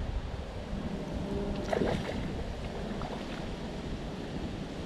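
Wind rumbling on the microphone over water swirling and splashing where a hooked carp is being played close to the bank, with one short sharper splash about two seconds in.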